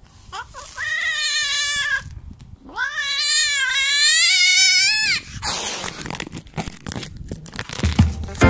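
Calico female cat yowling twice while being mated by a tomcat: a rising call that then holds, followed by a longer, louder wavering cry, the typical cry of a female cat during copulation. After it come a few seconds of rustling and knocks.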